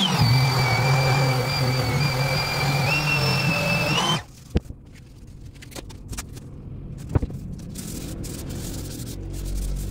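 Random orbital sander running against a black walnut table leg with a steady whine. Its pitch drops at the start, steps up again about three seconds in, and it cuts off suddenly about four seconds in. Then come two sharp knocks and the soft rubbing of a cloth wiping the sanded wood.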